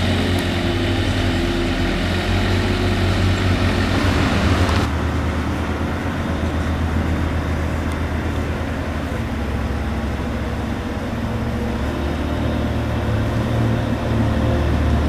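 JCB 403 compact wheel loader's diesel engine running steadily, its note shifting as the machine works in and out of the barn. The sound changes abruptly about five seconds in.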